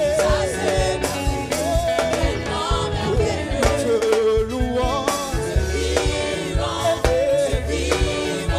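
Live gospel worship song: a lead singer with a choir, over a band with a steady beat and bass.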